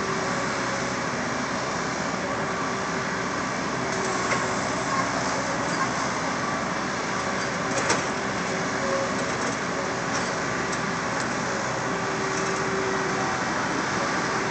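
Skid steer loader's engine running steadily, with a few short sharp knocks.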